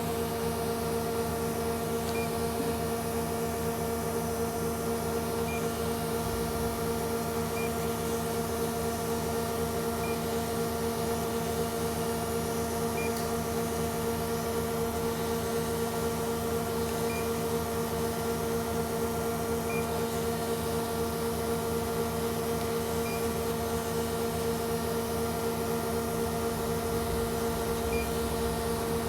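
Amada TPL-150S 150-ton mechanical link press running under power on a test run: a steady machine hum with a clear, constant tone. Faint light ticks recur every two to three seconds.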